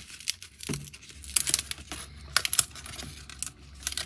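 Hands handling and pressing out 3D puzzle pieces from their sheets: an irregular run of small clicks, snaps and light crinkles.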